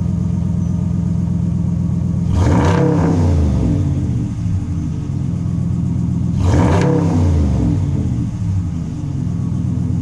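2020 Ram 1500 idling through a newly fitted Borla S-Type exhaust, revved twice: about two and a half seconds in and again about six and a half seconds in, the engine speed climbing quickly and falling back to a steady idle.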